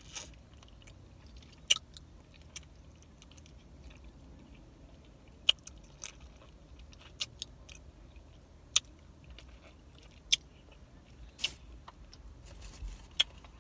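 Close-up chewing and biting of food, with a sharp, short mouth click every second or two over a low, steady hum.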